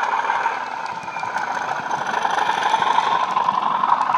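Class 37 diesel engine sound from a DCC sound decoder, played through twin 20x20 mm megabass speakers in a Bachmann OO gauge model locomotive. It runs steadily and grows a little louder as the model passes, with light ticks from the wheels on the track.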